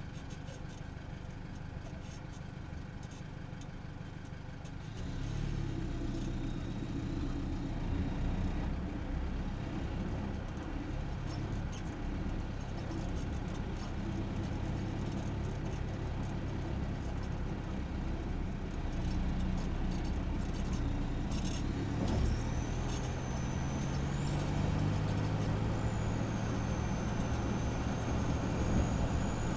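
Isuzu KB300's 3.0-litre turbo-diesel engine and stock exhaust, picked up from underneath the pickup as it drives; the engine note gets louder about five seconds in and rises in pitch near the end, with a thin high whistle over the last several seconds.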